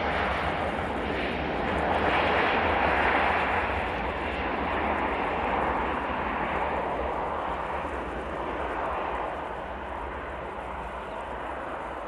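Jet noise from a Bombardier CRJ900 regional jet's twin rear-mounted turbofans on its takeoff roll on a snowy runway, a steady rushing sound that fades gradually as the jet moves away down the runway.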